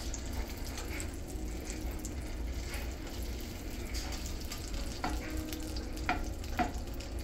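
Butter and vegetable oil sizzling steadily in a hot nonstick pan as a lump of butter melts and is stirred about with a wooden spoon.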